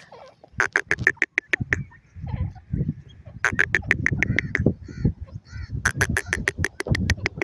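Teetar (francolins) calling in rapid chattering runs of short notes, about ten a second, three runs in all, with fainter short chirps between them and a low rumble underneath.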